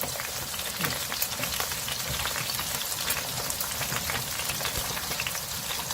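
A pot of abalone rice porridge cooking over the heat, with steady crackling and many small pops as the thick porridge bubbles.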